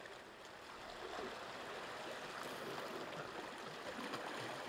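Small sea waves washing and splashing against the rocks at the water's edge: a quiet, steady wash of water.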